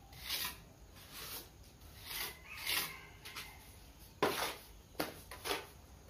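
Steel plastering trowel scraping and spreading cement mortar in about nine short scrapes, the loudest about four seconds in.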